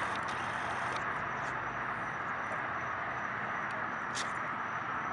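Steady outdoor background noise at night: an even hum with a faint high tone running through it and a few light ticks.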